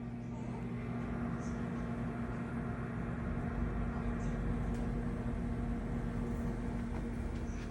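Refrigerator running: a steady hum with one constant tone over a low rumble, with a few faint ticks.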